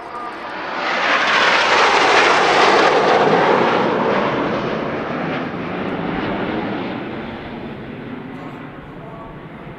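A formation of BAE Systems Hawk T1 jets flying past overhead, their turbofan engines making a loud roar. The roar swells over the first second or two, peaks, then slowly fades and dulls as the formation pulls away.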